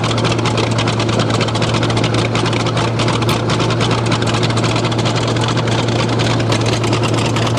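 Old bulldozer's diesel engine running steadily after a cold start in minus 10 °C, a continuous low drone with an even, rapid firing beat.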